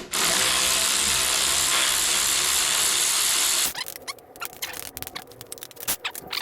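A power tool runs steadily for about three and a half seconds, undoing the minibike's handlebar clamp bolt, then cuts off. It is followed by a quick run of irregular ratchet clicks as the bolt is worked loose.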